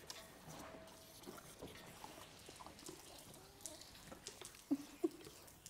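Pony drinking from a garden hose held to its lips: faint slurping and sucking with water dripping and splashing, with two louder short slurps near the end.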